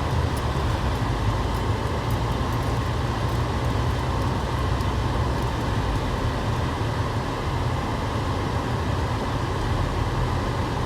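Steady low vehicle rumble with an even hiss over it and no distinct events.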